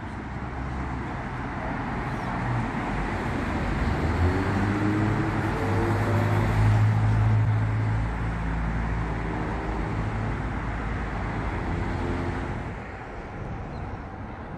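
Road traffic under an elevated roadway: a steady hiss of tyres and engines, with one vehicle's engine hum swelling as it passes, loudest in the middle. The traffic noise drops away about thirteen seconds in.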